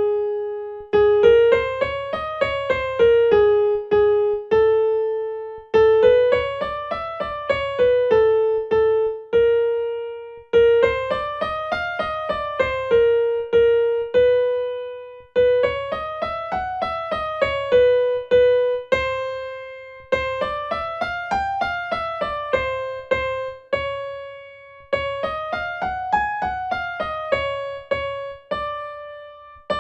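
Piano playing a five-note scale exercise up and back down over repeated low chords, then holding a note, about six times, each round starting a little higher. This is the accompaniment for an ascending and descending lip- or tongue-trill warm-up for sopranos.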